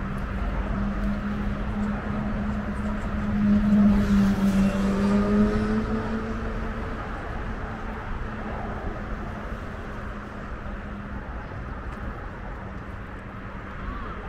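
A motor vehicle's engine going past, a steady low hum that is loudest about four to six seconds in, where its pitch falls, and fades away after about eleven seconds.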